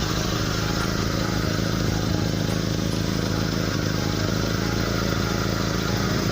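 Pickup truck engine idling steadily, with the rough, snoring 'ngorok' note that the mechanic puts down to leaks in the exhaust pipe.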